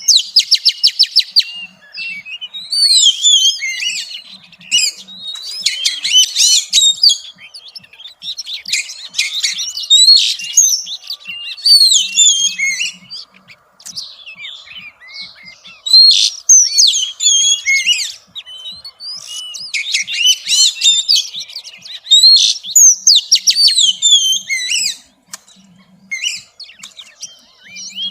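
Oriental magpie-robin singing: varied whistled phrases that sweep up and down in pitch, in bursts with short pauses, with a rapid run of clicks near the start. It is billed as a female's song, used by keepers to rouse males to sing.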